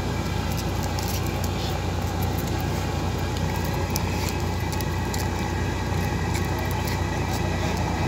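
Steady low mechanical hum with a constant background noise.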